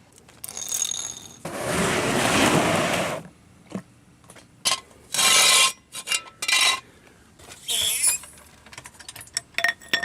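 Metal tools and parts being handled: a ringing clink near the start, several longer scraping, rubbing noises, and scattered short clicks and knocks.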